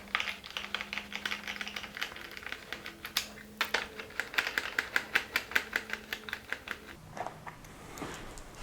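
Ratchet wrench clicking in quick runs of ticks, a few per second, while the fasteners on a motorcycle's tail section are loosened; the clicking eases off near the end.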